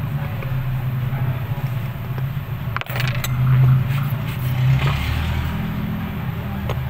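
Steady hum of a motor vehicle's engine running close by, swelling in the middle, with a few light clicks of small metal watch tools.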